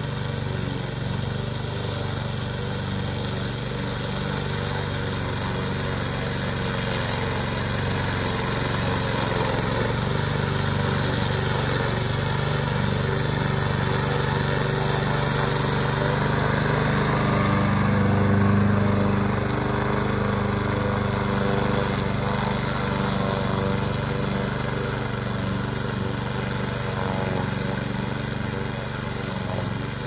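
Remote-control lawn mower's engine running steadily as the mower cuts tall grass, growing louder about halfway through as it passes close, then easing off as it moves away.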